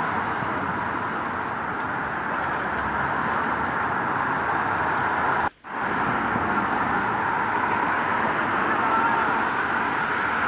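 Steady rain mixed with road traffic noise, an even wash of sound. It cuts out for a split second about halfway through, then resumes.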